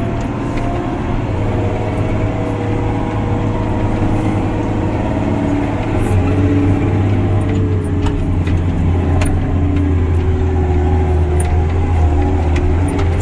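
Diesel engine of an off-road haul truck running steadily, heard from inside its cab, with faint scattered rattles. The engine gets louder from about six seconds in.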